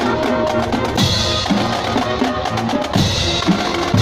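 Marching band playing: brass horns and sousaphones hold notes over the drumline's snare and bass drums beating a steady marching rhythm.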